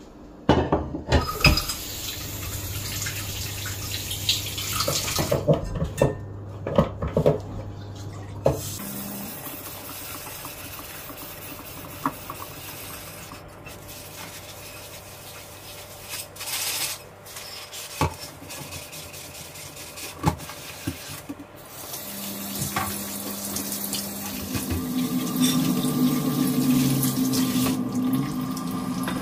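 Kitchen tap running into a stainless steel sink while pots and a non-stick frying pan are washed by hand, with scattered knocks and clinks of the pans against the sink.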